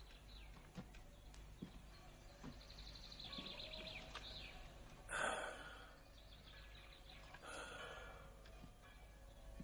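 Quiet rural ambience with faint bird chirps, and a person sighing twice, about halfway through and again near the end.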